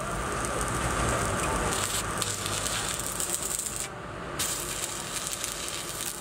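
Stick (shielded metal arc) welding on the steel plate of an excavator bucket: the arc crackles and hisses steadily, with a brief drop in the hiss about four seconds in.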